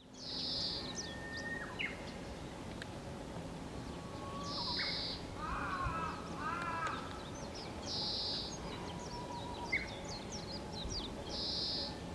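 Oriental greenfinch giving a plain, buzzy call four times, about every three and a half seconds, rather than its usual twittering song. Thin chirps and a short warble of other birds come between the calls.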